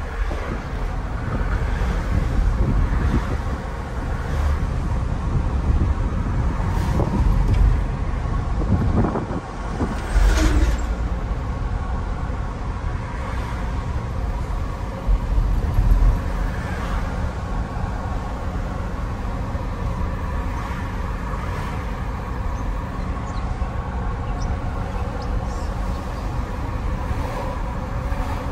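Pickup truck driving on the road, heard from inside the cab: steady engine and tyre rumble with a few louder bumps along the way.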